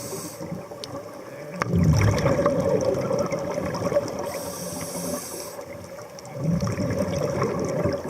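Scuba diver breathing through a regulator underwater: a hissing inhale, then a bubbling exhale, repeating about every five seconds.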